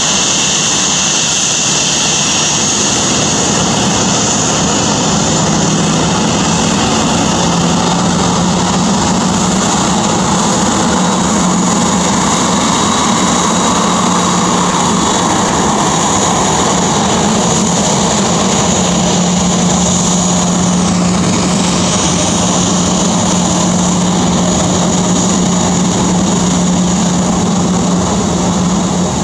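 Boeing 737-800's CFM56-7B turbofan engines running at taxi power as the airliner rolls past: a loud, steady jet whine over a low hum.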